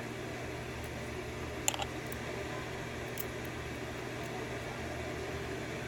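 Steady low background hum, with a few faint small clicks about two seconds in and once more a little after three seconds, as small lock pins and springs are handled during disassembly of the lock.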